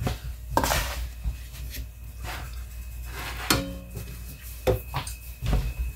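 Dishes and utensils knocking and clinking on a kitchen countertop as a plate is set down: a handful of separate knocks, one about three and a half seconds in with a short ringing tone after it.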